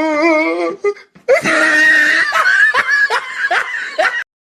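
A high-pitched voice laughing, broken into quick repeated bursts, stopping shortly before the end.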